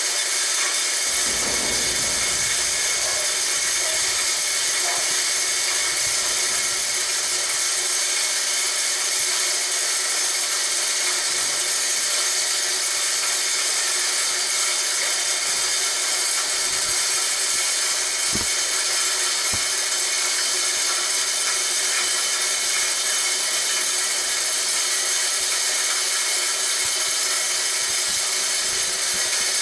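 Homemade corn grinder built from a water pump, its motor running steadily with a high-pitched whine and hiss as it grinds corn. A few short low knocks come near the start and again about two-thirds of the way through.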